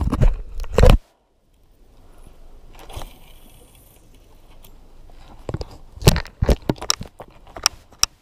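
Clothing, hands and fishing gear rubbing and knocking against a body-worn camera, heard as close-up scrapes, crackles and clicks. A loud burst comes in the first second, then it goes nearly quiet, and a flurry of sharp irregular clicks follows from about six seconds on.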